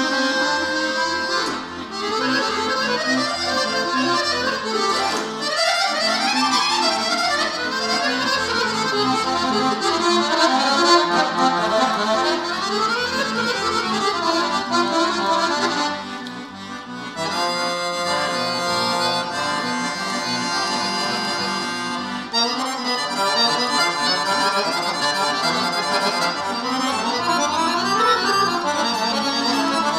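Weltmeister piano accordion played solo: fast runs up and down the keyboard over bass-button accompaniment, with a few seconds of held chords a little past the middle before the quick runs start again.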